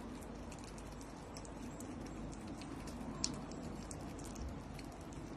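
Otter chewing a quail egg: a run of small, irregular clicks and smacks from its mouth, with one louder click a little past halfway.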